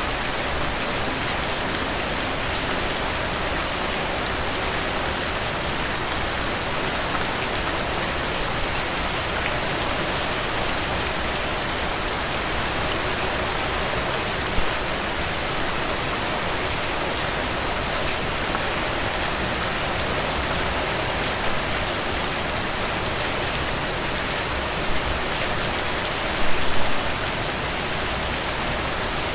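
Steady rain falling on broad, glossy tropical leaves, a dense even patter with a few louder drops striking close by, a small cluster of them near the end.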